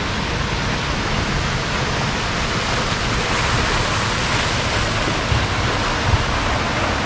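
Steady rush and splash of a fountain jet falling back into the water of an indoor river.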